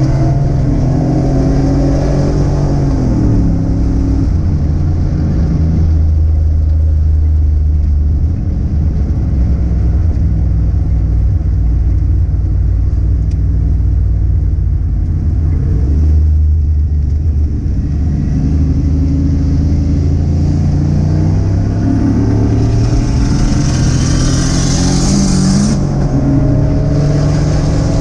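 Car engine running under load, its pitch rising and dropping with throttle and gear changes, over steady road and wind noise. A hiss swells for a few seconds near the end.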